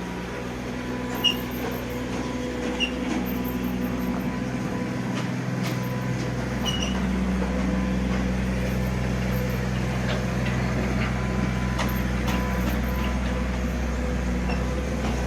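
Komatsu PC20 mini excavator's diesel engine running steadily, its low drone growing heavier about six seconds in as the machine works. A few light clanks sound over it.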